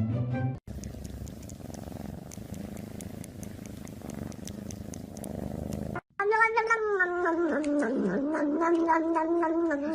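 A cat purring, a low rough rumble, then after a cut about six seconds in a cat's long drawn-out yowl that bends in pitch for several seconds.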